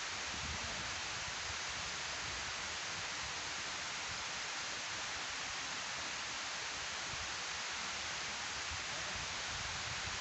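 Water pouring down a sloped concrete weir spillway into the pool below: a steady, even rushing hiss.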